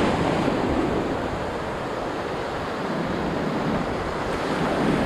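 Ocean surf washing in over the sand at the shoreline, a steady rushing of waves, with wind rumbling on the microphone.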